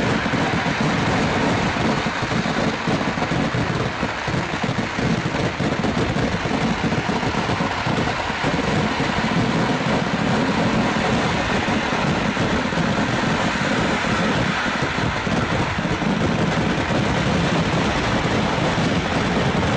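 Festival fireworks: a dense, continuous barrage of firecracker bangs so close together that they merge into one steady rumble.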